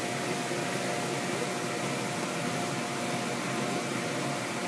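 Electric air blower of an inflatable bounce house running steadily: an even rushing noise with a faint steady tone.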